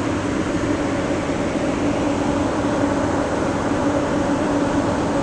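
Steady hum of a building's air-conditioning or ventilation system: an even rushing noise with a constant low drone.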